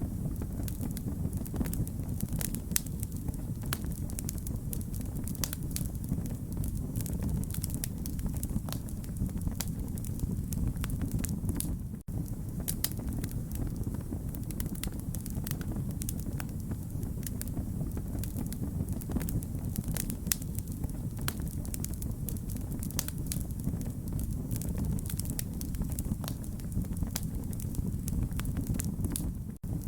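Wood fire burning with a steady low rumble and frequent sharp crackles and pops; the sound cuts out for an instant about twelve seconds in and again near the end.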